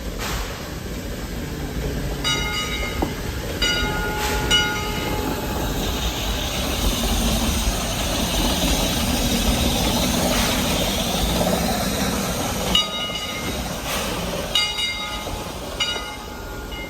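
Heisler geared steam locomotive and its train running on the rails, a rushing, clattering noise that swells in the middle. Its whistle gives a series of short toots about two seconds in, and again near the end.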